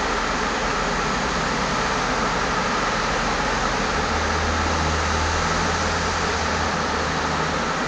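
Steady car-cabin noise in slow tunnel traffic: a fan-like hiss, with a low engine hum coming in about halfway through and dropping away near the end.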